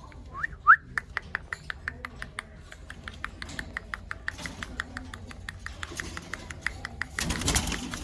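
Ringneck parakeet calling: two quick rising chirps, then a fast, even run of short clicking notes, about six a second, lasting several seconds. A brief burst of noise comes near the end.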